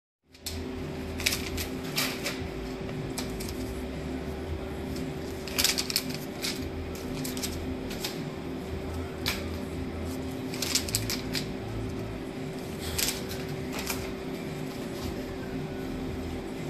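Paper sticker backing crinkling and rustling in short bursts as it is shaken and flicked off a hand it clings to by static, over a steady electrical hum.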